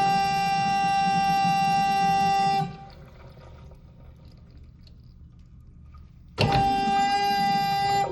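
Toilet flush valve sounding a loud, steady pitched tone with many overtones. The tone cuts off about two and a half seconds in, leaving a faint hiss of water, then starts again suddenly near the end and stops.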